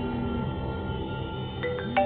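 Music with a xylophone-like mallet melody. Here the struck notes pause, leaving held tones over a soft low pulse, and the mallet notes start again near the end.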